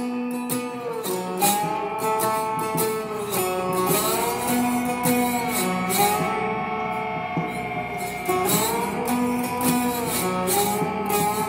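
Background music: a guitar-led track of plucked strings with a steady beat.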